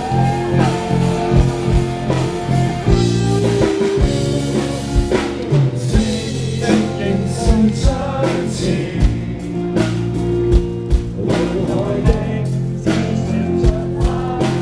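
Rock band playing live, with electric guitar, sustained bass notes and a drum kit hitting a steady beat.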